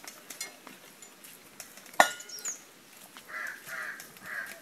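A single sharp metallic clank with a brief ring, like a tin pail being knocked, about halfway through. Near the end a crow caws three times in quick succession.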